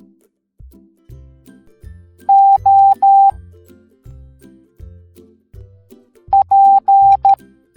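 Morse code tone beeps at a steady high pitch, sounding in two groups over soft background music. First come three long beeps, the dash-dash-dash of the letter O. About four seconds later comes a short, long, long, short group, the letter P.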